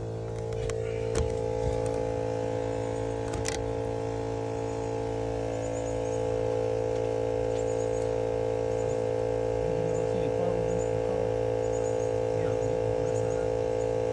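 Steady electrical hum made of several stacked tones, with a few sharp clicks in the first few seconds.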